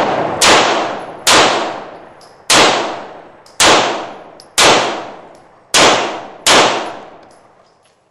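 Walther P1 9mm semi-automatic pistol firing seven shots at an uneven pace, about one a second, each loud report ringing out and dying away before the next.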